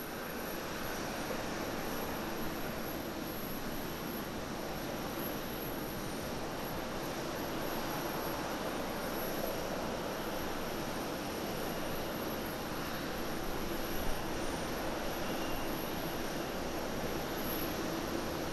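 Boeing 787-8 Dreamliner's jet engines at approach power, a steady rushing drone as the airliner descends on final approach to land.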